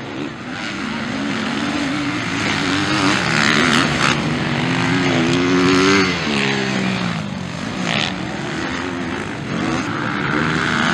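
Several motocross dirt bikes racing past, their engines revving up and down as the riders work through the corners. The loudest moment is about five to six seconds in, where one engine's pitch climbs and then drops away.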